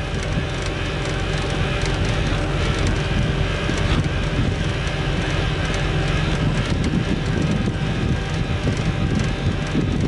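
AVR Puma 4.0 self-propelled potato harvester running steadily while unloading, its diesel engine and conveyors sounding along with the clatter of potatoes tumbling off the discharge elevator into a trailer.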